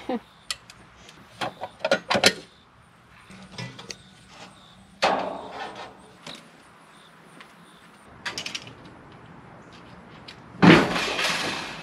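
Handling noises from tools and metal parts: a run of small clicks and knocks at first, a single knock about five seconds in as the air conditioner condenser's sheet-metal service panel comes off, a short clatter, then a loud bang with a rattling tail near the end.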